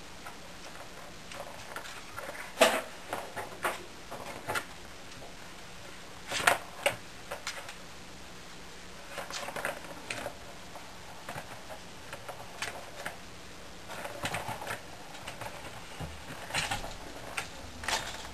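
Kittens playing with a plastic ball-in-track cat toy: irregular clicks and knocks of the ball and paws against the hard plastic, coming in short clusters.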